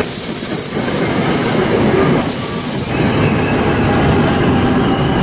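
New Jersey Transit push-pull commuter train passing close at speed: a loud, steady rush of steel wheels on rail, with bursts of high hiss. The electric locomotive pushing at the rear goes by near the end, when a few steady high tones come in.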